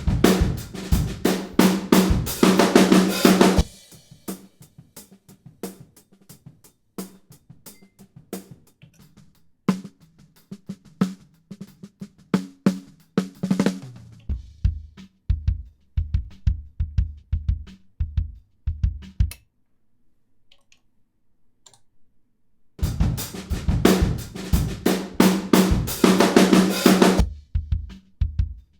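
Studio-recorded drum kit (kick, snare and hi-hat) playing a steady beat, heard in turns as the full kit and as soloed close-microphone tracks, so the sound thins out and swells back several times. Loud full-kit playing opens and comes back near the end, with a stretch of mostly low kick-drum thuds and a nearly quiet gap with only faint ticks in between.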